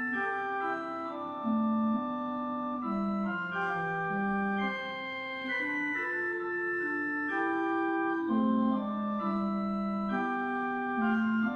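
Organ music: slow, sustained chords with a melody moving in held notes, at a steady level and with no beat.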